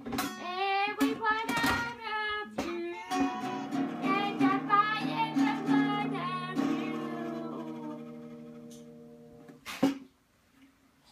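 Acoustic guitar strummed, with singing over it for the first few seconds. The chords then ring out and slowly fade away, and a sharp knock sounds near the end.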